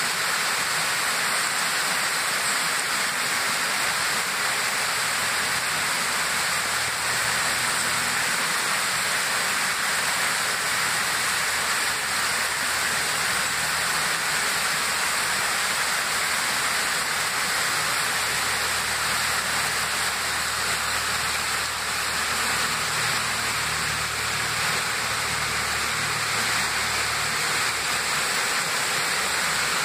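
Steady rushing of a rocky mountain stream as it cascades over boulders, white water running without a break.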